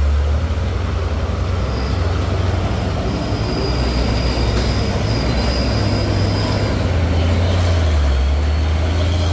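Heavy diesel truck engine running steadily at close range, a loud low rumble, as a Hino box truck climbs the gravel grade.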